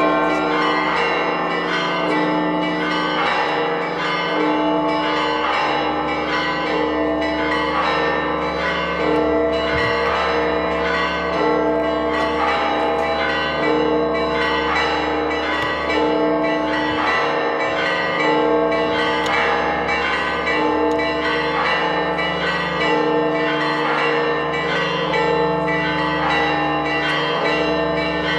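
Church bells ringing in a rapid, continuous peal, many strikes a second with the tones overlapping. This is the festive ringing that greets the Holy Fire.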